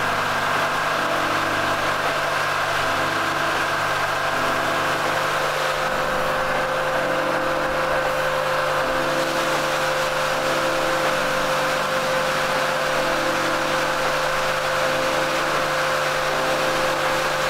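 Background music: a sustained, even drone with a slow repeating pattern in the low register.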